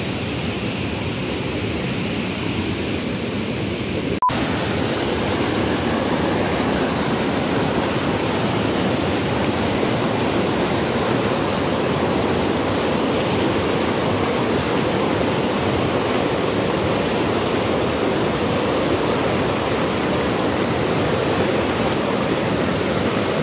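Whitewater rushing and tumbling over rocks in a river cascade, a steady rush of water. About four seconds in there is a brief dropout, after which the rush is louder.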